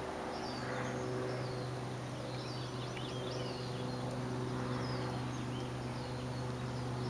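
Songbirds chirping in short, quick notes that rise and fall, one after another throughout, over a steady low hum.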